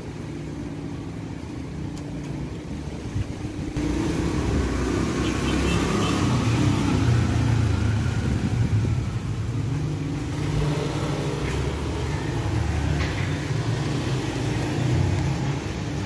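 Strong gusty wind buffeting the microphone, a low rumbling noise that gets sharply louder about four seconds in and stays strong.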